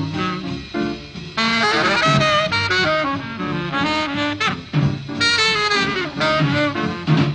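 Jazz music with a saxophone playing a wavering melody over a moving bass line.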